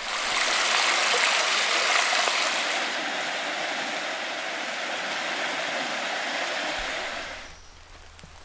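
Steady rushing of water, starting abruptly and dropping away about seven and a half seconds in.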